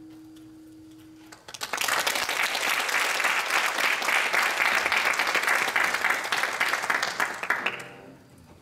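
The last held note of an acoustic guitar rings out and stops, then an audience bursts into applause about a second and a half in, clapping steadily and dying away near the end.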